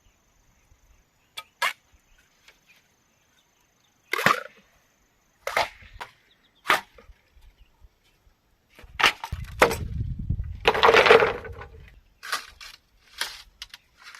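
Bamboo being worked by hand: sharp wooden knocks and cracks a second or two apart, then a denser run of cracking and rustling with a low rumble about nine to twelve seconds in.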